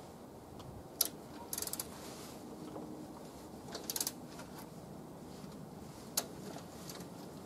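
A few sharp metallic clicks and two short bursts of rapid ticking from hand work at a snowblower engine's oil drain plug, over a steady low background hiss.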